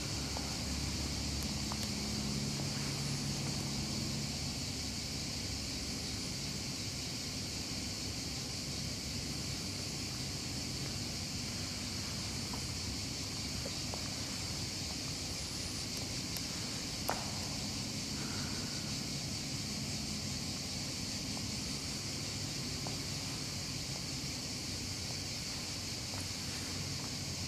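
Steady background room tone with a constant hiss. A low hum fades out after the first few seconds, and there is a single faint click about 17 seconds in.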